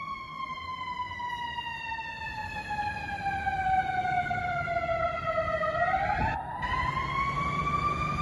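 Fire engine's siren wailing: one long slow wail whose pitch falls for about six seconds, then climbs back up near the end, getting louder, with a low rumble underneath.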